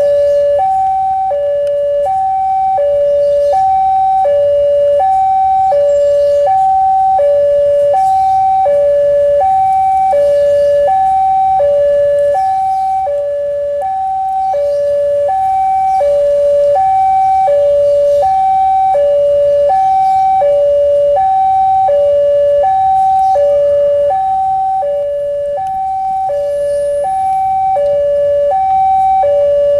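Railway level-crossing warning alarm: an electronic two-tone chime alternating evenly high and low, about one high-low pair per second, sounding because a train is approaching the crossing.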